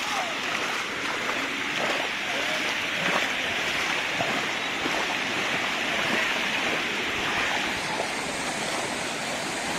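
Floodwater rushing steadily across a submerged road and spilling over its edge: a continuous, even rush of flowing water.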